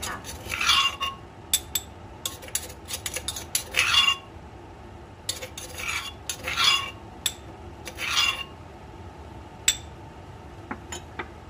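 Pestle pounding and grinding in a mortar: irregular knocks mixed with short scraping strokes, several of them a little louder than the rest.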